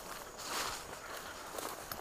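Footsteps of a person walking through woodland undergrowth, with leaves and brush rustling.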